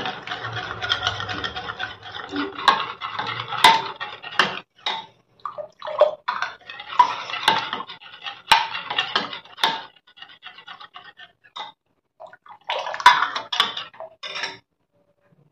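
Steel ladle stirring a wet flour batter in a glass bowl: irregular scraping and sloshing of metal against glass, with sharp clinks now and then. It thins out about two-thirds through, picks up again briefly, then stops shortly before the end.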